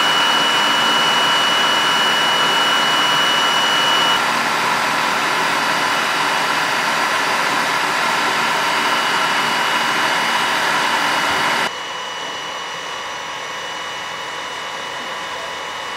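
Steam locomotive standing and hissing steadily, with a faint high whine that stops about four seconds in. The hiss drops abruptly to a lower level near the end.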